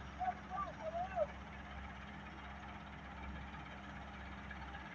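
Steady low diesel-engine hum from heavy machinery working a stone-loading site. In the first second and a half a few short wavering pitched calls rise over it.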